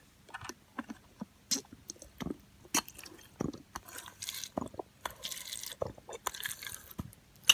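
A small plastic squeeze bottle being squeezed to squirt water into a toy plastic glitter dome: irregular squishes, drips and light plastic clicks, with a few longer hissing squirts in the second half.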